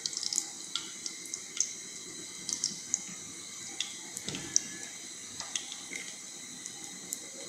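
Soybean oil pouring into a metal pan at the start, then scattered faint ticks and crackles over a steady hiss as the oil heats on the stove.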